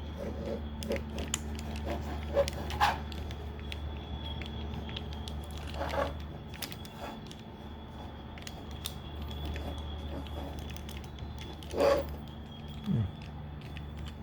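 Scattered clicks and taps of hard plastic action-figure parts being handled and pushed together as a piece is forced into place, over a steady low hum.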